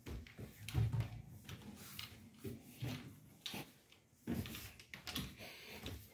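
Footsteps climbing carpeted stairs: a run of dull, uneven thumps, about two a second.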